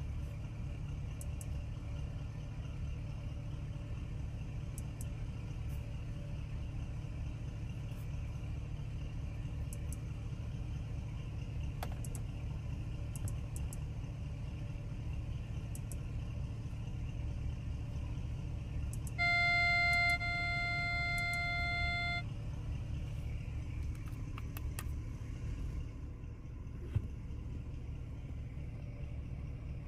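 Lamborghini Urus's 4.0-litre twin-turbo V8 idling steadily, heard from inside the cabin, with faint clicks of console and touchscreen buttons being pressed. About two-thirds of the way through, the car's electronic chime sounds for about three seconds, louder for its first second.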